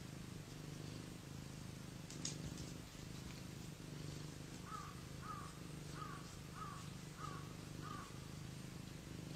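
Cat purring steadily, a low pulsing sound. In the second half come six short, higher calls about half a second apart.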